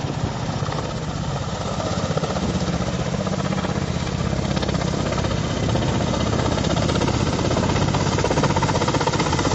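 Kamov Ka-52 attack helicopter passing low and close, its coaxial rotors beating out a rapid, steady chop that grows gradually louder as it nears.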